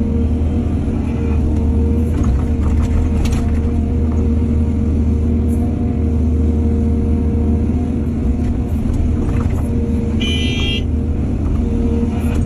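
Excavator's diesel engine running steadily, with a few clanks about two to three seconds in and a brief high squeal about ten seconds in.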